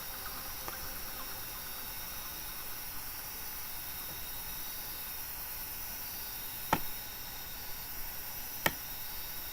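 Steady faint microphone hiss, with two sharp computer mouse clicks about two seconds apart near the end.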